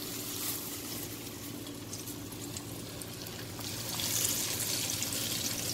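Masala-coated fish pieces sizzling as they deep-fry in hot ghee in a wok, the sizzle growing louder about four seconds in as another piece is laid into the fat. A low steady hum runs underneath.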